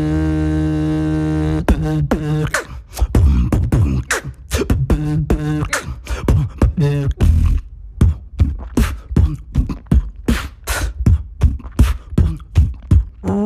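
Human beatboxing: a steady hummed vocal drone, then, just under two seconds in, a run of mouth-made kick and snare hits in a beat, about two to three hits a second.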